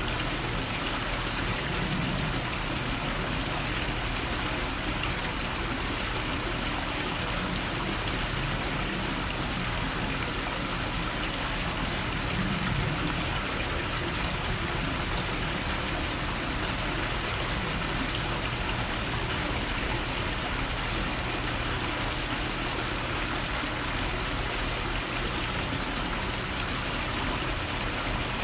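Steady, even rushing noise with no distinct calls or knocks in it.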